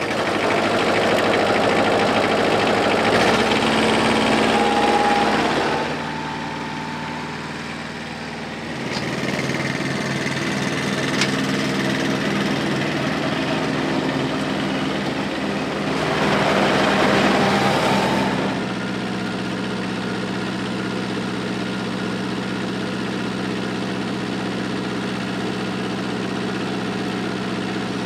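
Iseki SXG216 ride-on mower's diesel engine running. Its loudness and pitch shift several times: it drops about six seconds in, picks up again around nine seconds, swells briefly around sixteen to eighteen seconds, then settles to a steady run.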